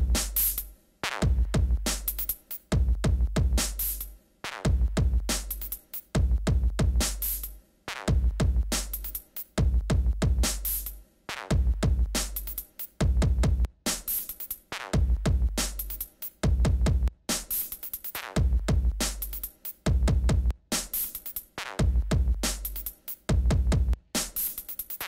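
Electronic background music with a steady drum-machine beat and deep bass hits.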